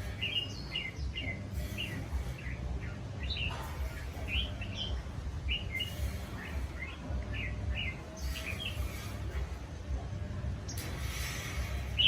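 Small birds chirping, many short high chirps about twice a second, over a steady low rumble, with a few brief bursts of rustling hiss, the longest near the end.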